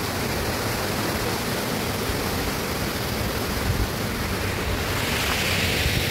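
Steady wind noise on the microphone: an even rushing hiss over a low rumble, growing a little brighter near the end.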